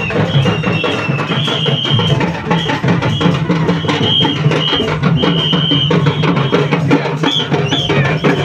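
Procession drumming on double-headed dhol barrel drums, a fast, dense run of strokes. Short high whistle-like notes repeat over the drums.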